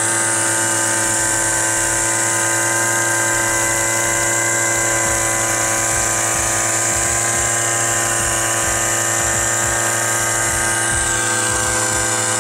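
Small engine of a motorised knapsack sprayer running steadily at constant speed, a high, even hum while it drives spray out through a hand lance.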